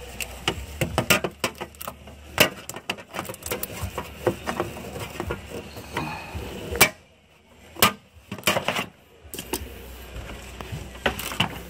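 Irregular sharp clicks and knocks of plastic interior trim panels being pried and handled, with a short lull about seven seconds in.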